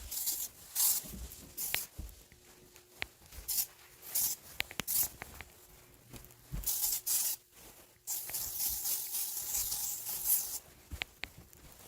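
Cleaning with paper towels and disinfectant spray: repeated short hisses and rustles, with one longer stretch of hiss and rubbing near the end, and a few small clicks and knocks between them.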